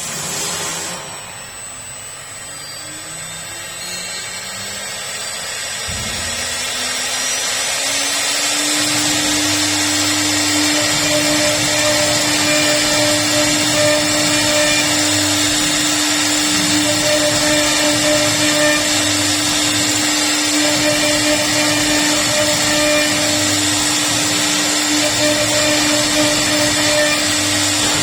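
CNC wood router spindle spinning up, its whine rising in pitch and loudness over about eight seconds, then running at a steady high speed with a broad hiss.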